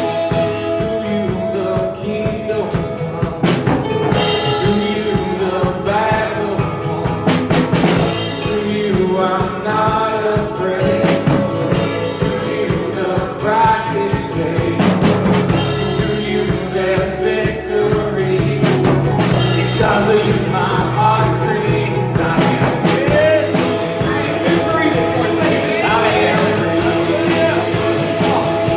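Church worship band playing a song with drums and guitar, with singing.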